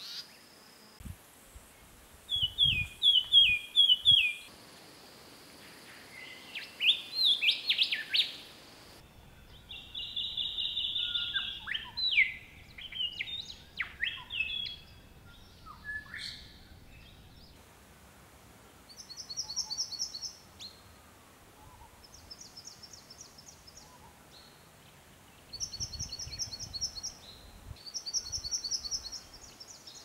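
Wild Australian bush birds calling, several species one after another: quick rising chirps and whistles in the first half, then short bursts of rapid high-pitched notes repeated every few seconds.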